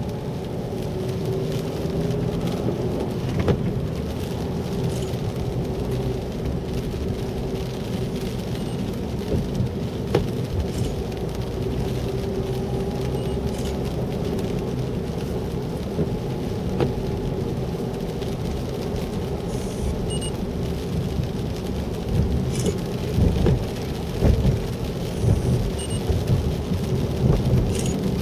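Inside a car driving on a wet road in rain: a steady low rumble of engine and tyres on wet pavement with a faint whine, rain spattering the windshield, and a few louder bumps over the last several seconds.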